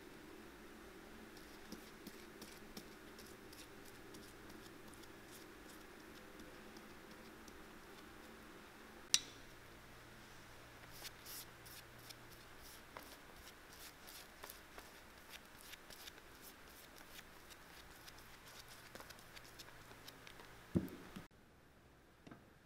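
Faint scratching and small ticks of a glue dauber working in a glue pot and spreading cement onto a rubber heel top lift, over a low steady room hum. There is a sharp tap about nine seconds in and a soft thump near the end.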